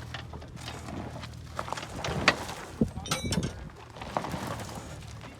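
Irregular crunching and scuffing on loose dirt and rock with sharp knocks, the loudest a little over two seconds in. A low engine hum runs underneath for the first two seconds.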